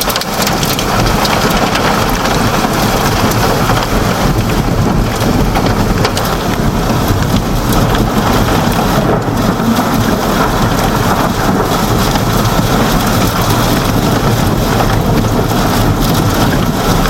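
Hail and heavy rain pelting a vehicle's roof and windows, heard from inside the cabin as a loud, steady clatter of countless small impacts.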